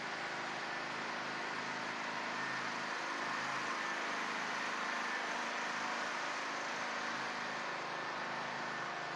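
Steady background noise: an even hiss with a faint low hum underneath and no distinct events.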